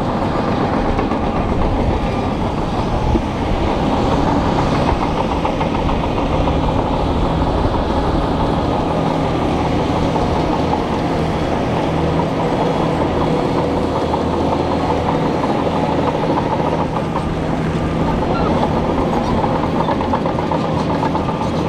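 Shantui crawler bulldozer working, its diesel engine running steadily and its steel tracks clattering as it pushes dirt and rock with the blade.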